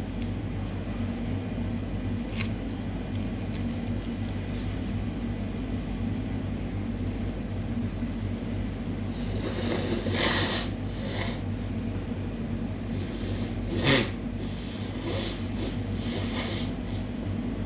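Nose sounds from a person with a head cold, over a steady low hum. A few short noisy sounds come from about nine seconds in, and the loudest is a short sharp burst about fourteen seconds in.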